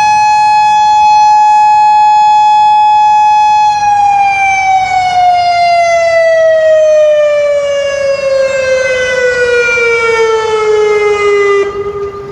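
Federal Signal Modulator 5020 outdoor warning siren ending its one-minute test signal. It holds a steady tone for about four seconds, then winds down with its pitch falling slowly, and drops away sharply near the end.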